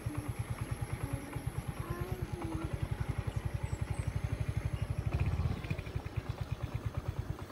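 Small motorcycle engine running at low speed on a dirt road, a low, even pulsing that swells briefly about five seconds in.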